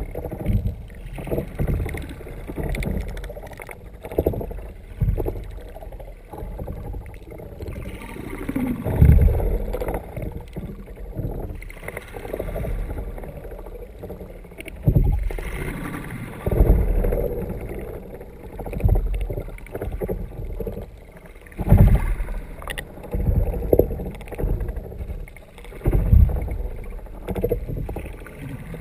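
Muffled water sloshing and irregular low thumps against a kayak's hull, heard through a sealed GoPro dive housing mounted underwater beneath the moving kayak.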